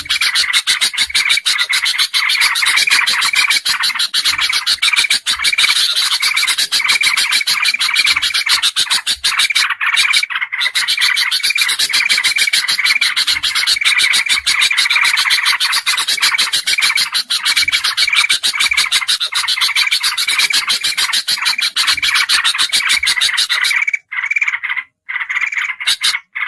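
Bulbuls calling in a bird-lure recording that mixes kutilang emas, kutilang jambul and trucukan (yellow-vented bulbul) calls. It is a loud, fast, unbroken chatter of sharp notes with short repeated notes over it, cutting out briefly twice near the end.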